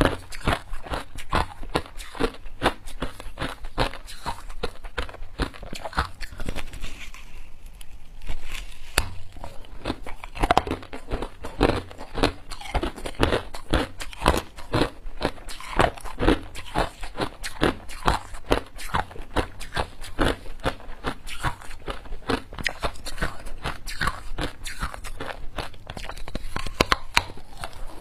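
Hard ice being bitten and chewed close to a clip-on microphone: a rapid, continuous run of sharp crunches and cracks, with a short quieter spell about seven seconds in.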